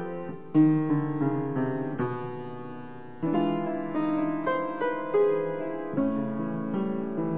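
Piano music: a slow melody with chords, each note struck and left to fade.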